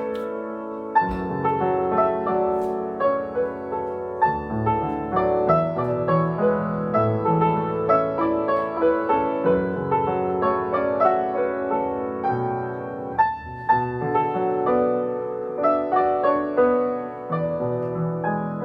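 Background piano music: a solo piano playing a gentle melody over chords, note after note.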